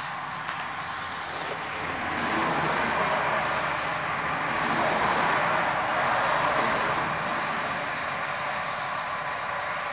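A steady rushing noise that swells about two seconds in and eases off toward the end.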